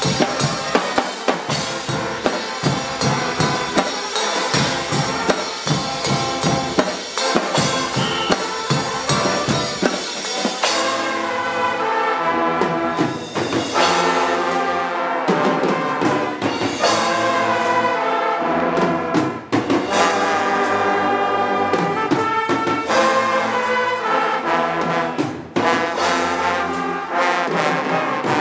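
Guggenmusik band playing: marching drums and a drum kit beat out a fast rhythm alone at first, then about ten seconds in trombones, trumpets and sousaphones come in together over the drums.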